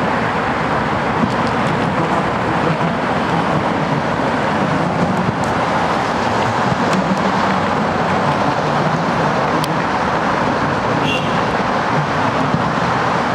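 Steady noise of road traffic, tyres and engines, holding an even level throughout, with a few faint ticks.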